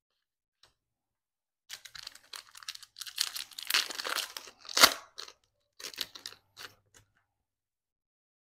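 Foil wrapper of a 2022 Panini Absolute football card pack being torn open and crinkled by hand, starting about two seconds in, with one sharp crackle near the middle as the foil rips.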